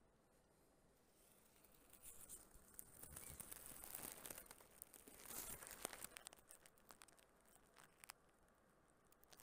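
Faint crackling and rustling of dry material, rising about two seconds in and dying down after about six seconds to a few scattered clicks.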